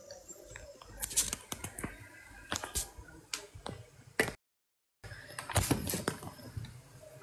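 Handling noise from a phone being carried and moved about: irregular sharp clicks and knocks with rustling against the microphone. The sound cuts out completely for about half a second a little past the middle.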